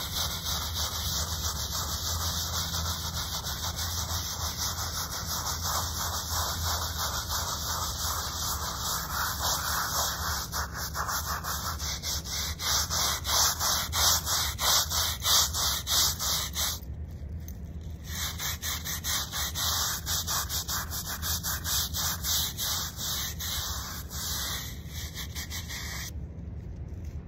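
Stiff hand brush scrubbing the face of a stone headstone in quick, rhythmic back-and-forth strokes. There is a brief pause past the middle, and the scrubbing stops shortly before the end.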